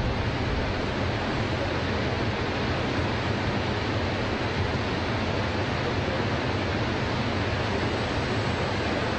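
Niagara Falls' American Falls: a steady, even rush of falling water pouring onto the rocks below.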